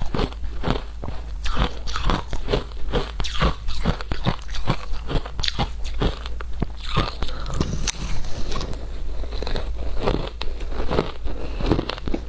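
Shaved ice being bitten and chewed: a continuous run of sharp, icy crunches, several a second.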